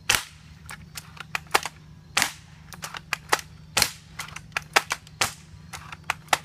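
A 6 mm airsoft sniper rifle fired again and again in quick succession: a string of sharp snaps, a loud one roughly every half second to second, with fainter clicks between.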